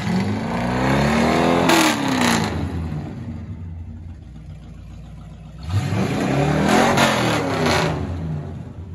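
1960 Chevrolet C10 Apache pickup's engine revved twice, once at the start and again about six seconds in. Each rev climbs for over a second and drops back to a steady idle.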